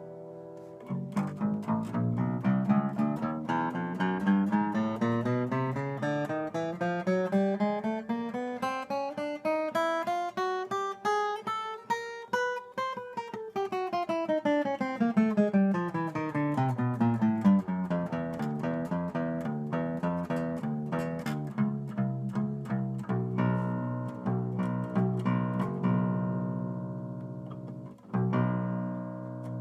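Agile Renaissance eight-string guitar: a quickly picked scale runs up for about eleven seconds and back down, then a few chords are struck and left ringing.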